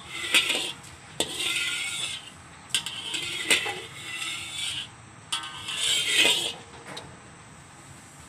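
Metal ladle scraping around the inside of an empty, dry wok, in about four strokes with a few sharp clinks of metal on metal. It stops about two seconds before the end.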